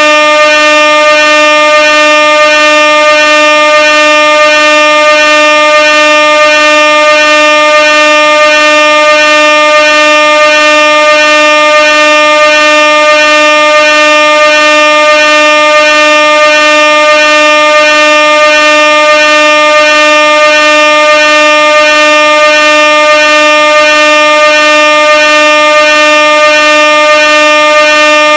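Air horn sounding one loud, steady, unbroken note at a single pitch, with a slight regular wavering in its lowest tone.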